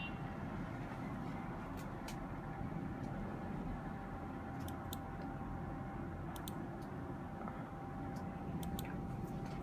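Computer mouse clicking: a few pairs of quick clicks, like double-clicks, spread over several seconds, over a steady hum of room noise with a faint high steady tone.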